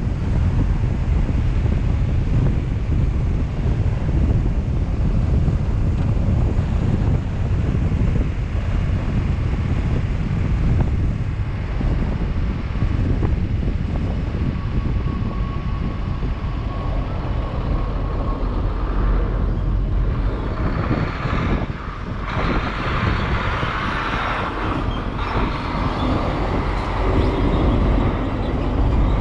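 Steady vehicle and road traffic noise with wind rumbling on the microphone. A brighter hiss swells in about two-thirds of the way through and falls away near the end.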